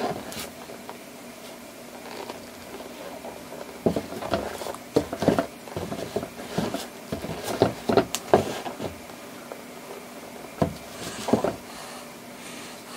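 Air Jordan 11 sneakers being handled and shifted on a cloth-covered table: irregular rustles and soft knocks, thickest in the middle, with a couple more near the end.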